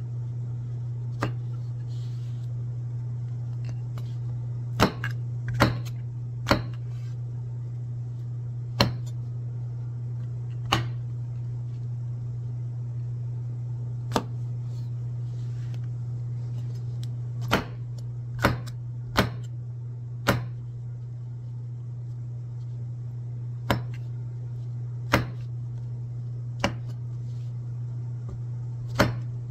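Kitchen knife slicing white button mushrooms on a wooden cutting board: sharp knocks of the blade striking the board, irregularly spaced, about one every one to two seconds with short pauses, over a steady low hum.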